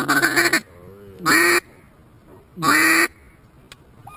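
Hand-held duck call blown by a hunter: a short quick run of quacks, then two long, loud quacks about a second and a half apart.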